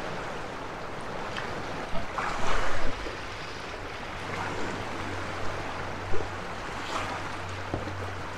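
Lake waves lapping and splashing against the rocks of a stone breakwater, with a louder rushing surge about two seconds in, and wind on the microphone.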